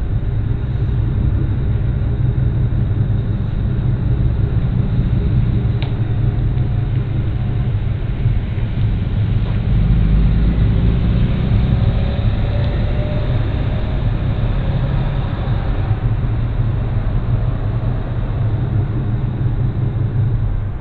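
A motor vehicle's engine idling: a steady low rumble that swells a little about ten seconds in.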